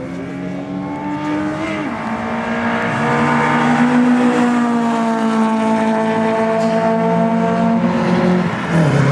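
Sprint race cars running hard down the strip, engine note dropping in pitch at gear changes near two and three seconds in. The sound grows louder to its peak about three seconds in as a car passes close, then stays loud.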